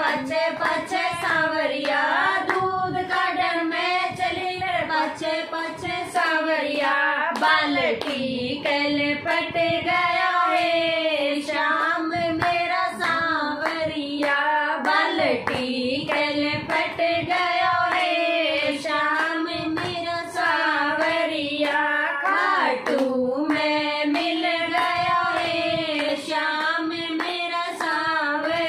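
Women singing a Hindi devotional bhajan together, with steady rhythmic hand-clapping keeping time throughout.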